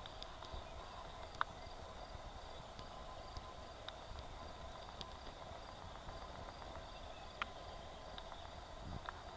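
Faint outdoor ambience: insects chirping in a high, evenly repeating pattern over a steady hiss, with a few sharp clicks, the loudest about a second and a half in and another near the end.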